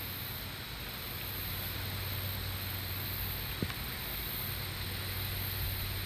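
Steady outdoor background noise, with wind rumbling on the microphone and a faint click about three and a half seconds in.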